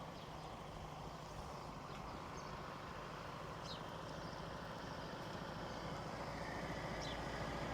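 Steady background rumble and hiss, like distant traffic, slowly growing louder, with two faint short high chirps.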